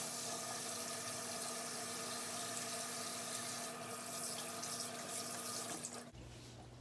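Kitchen tap running into the sink while hands are washed under it, a steady rush of water that is shut off about six seconds in.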